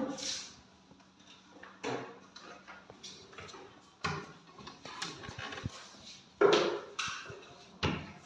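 Irregular knocks and clunks, the loudest about six and a half seconds in, over a low steady hum.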